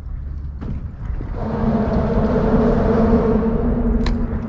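Shimano Stradic spinning reel being cranked, giving a steady whirring gear hum from about a second and a half in, with a sharp click near the end.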